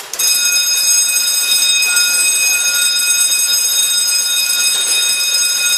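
Electronic fire alarm sounder of a PLC-controlled fire alarm panel, set off by a manual trigger in zone 1. After a click at the start it sounds one loud, steady, high-pitched tone without pulsing.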